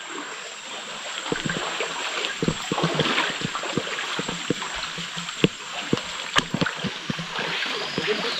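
Footsteps wading through a shallow forest stream: irregular splashes and knocks from about a second and a half in, over the hiss of running water.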